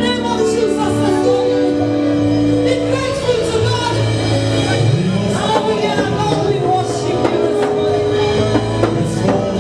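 Gospel music with singing and a band, drums included, in a large hall.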